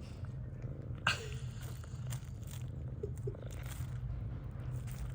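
Cat purring steadily, with a short high squeak about a second in that falls in pitch.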